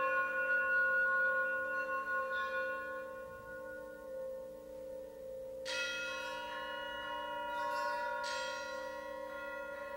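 Struck metal percussion instruments ringing like bells over steady low sustained tones. A ring fades away through the first half, then two fresh strikes, one a little past the middle and another about two and a half seconds later, each leaving long, overlapping ringing tones.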